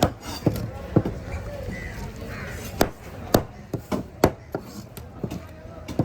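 Knife chopping through fish on a wooden cutting block: a series of sharp, irregular chops, about one or two a second, with market voices in the background.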